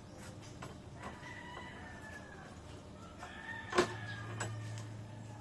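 Several drawn-out bird calls that fall slowly in pitch, over a steady low hum, with one sharp click a little before four seconds in.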